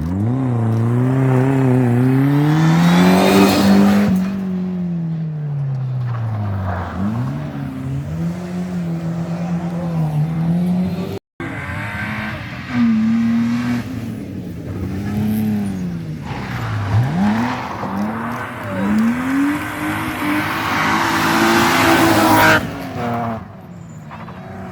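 Rally car engines revving hard and falling back through gear changes and braking as the cars pass at speed. There are two separate passes, with a sudden cut between them about eleven seconds in.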